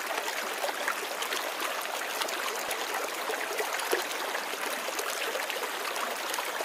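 Shallow river running over stones: a steady babble and trickle of water, dotted with small splashes and drips.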